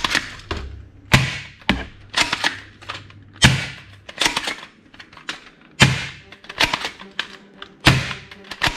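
Black plastic toy submachine gun being handled: a string of about ten sharp plastic clicks and clacks at uneven intervals as its parts are worked and snapped.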